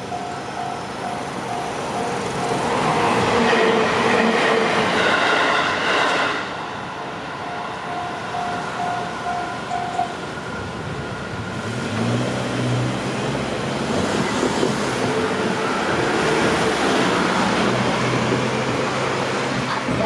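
Japanese railway level-crossing alarm ringing in rapid repeated dings, about two a second, while a train runs over the crossing with a loud rush about three to six seconds in. The alarm stops about ten seconds in, and road traffic then moves across the tracks.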